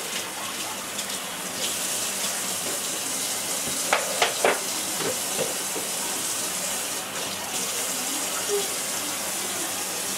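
Kitchen faucet running steadily into a sink, with a few sharp clinks about four seconds in.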